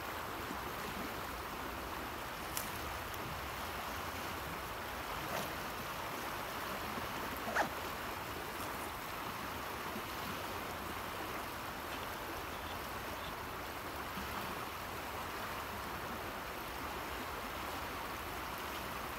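Steady rush of flowing river water from the Rio Grande, with a few faint clicks.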